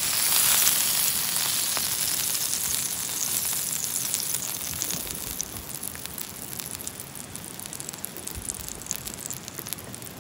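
Beef tongue and a fried egg sizzling in hot oil in a frying pan, loudest at the start and slowly fading, with scattered small pops.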